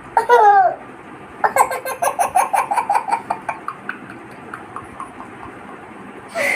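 Baby laughing: a short squeal, then about a second and a half in a run of quick laughs, roughly five a second, that trails off.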